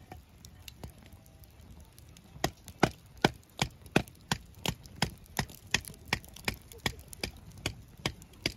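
Knife chopping food: steady, evenly spaced strokes about three a second, starting a couple of seconds in.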